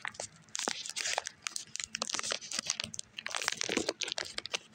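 A chocolate bar being broken into pieces in its wrapper: crinkling packaging and a run of short, sharp snaps and crackles.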